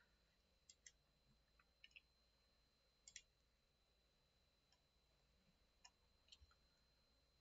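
Faint computer mouse clicks over near silence, about five times, mostly in quick pairs.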